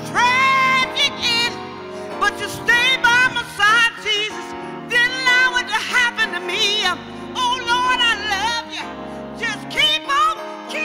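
A woman singing solo into a microphone, with strong vibrato on held notes, over sustained keyboard chords.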